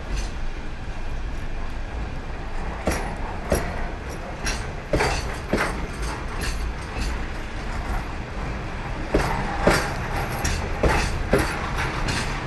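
Freight train's container wagons rolling past on the rails: a steady low rumble with sharp, irregular clacks of the wheels over the rail joints.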